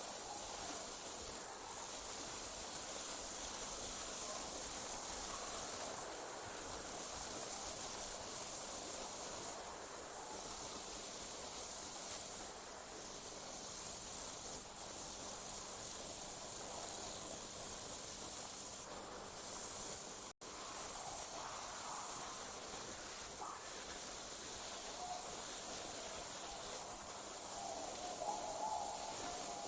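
Night insects such as crickets trilling in a steady, very high-pitched chorus that breaks off briefly every few seconds. A faint lower warbling comes in near the start and end, and the sound cuts out for an instant about two-thirds of the way through.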